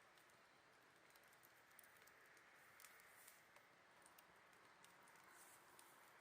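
Campfire burning faintly, its wood crackling in scattered sharp pops over a soft steady hiss.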